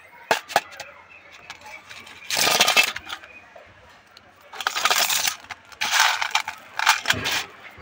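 Two sharp clicks, then four short bursts of rustling and scraping about half a second each, from a gray langur's hands sweeping and picking through loose grain on a stone ledge.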